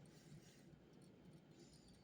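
Near silence: quiet room tone with a few faint small clicks and a soft, brief scratch near the end.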